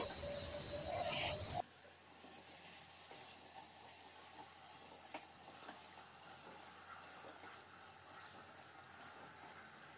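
Chicken and spice masala frying in a stainless-steel pot while a wooden spoon stirs it: a couple of scraping strokes in the first second or so, then the level drops suddenly to a faint steady sizzle with a few light knocks.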